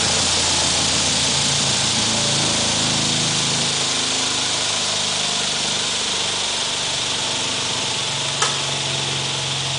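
Jugs Jr pitching machine's electric motor and spinning pitching wheel whirring steadily, the hum shifting in pitch as the speed dial is turned. A sharp click sounds near the end.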